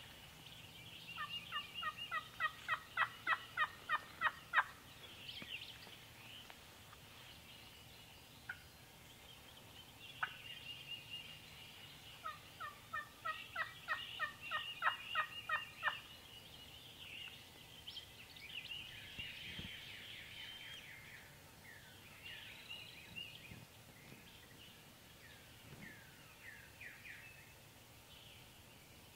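Turkey yelping: two long runs of evenly spaced yelps, about four or five a second and growing louder, the first about a second in and the second about halfway through. Songbirds sing throughout.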